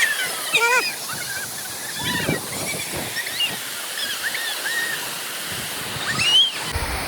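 Waterfall rushing steadily, with scattered short high-pitched calls or shouts over the roar of the water.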